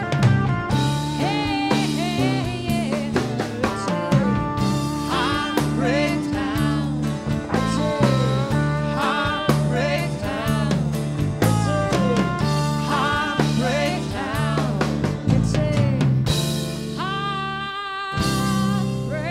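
Live band playing a song: a woman singing over guitars, bass and drum kit. The drums and bass stop for a moment near the end, under held chords.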